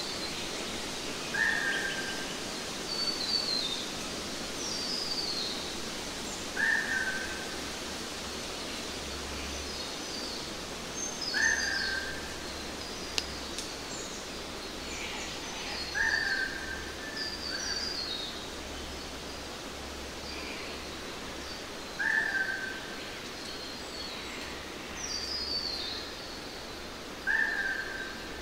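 Birds calling over a steady background hiss. One short call repeats about every five seconds, with thinner, higher, falling chirps in between, and there is a single sharp click about halfway through.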